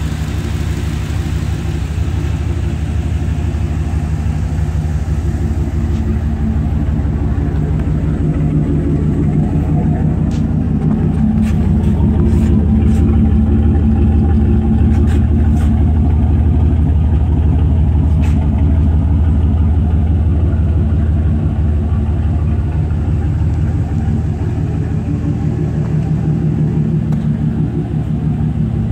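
A 2003 Dodge Ram 1500's 5.9-litre V8 idling steadily. It gets louder for several seconds near the middle, as it is heard from along the underside near the exhaust.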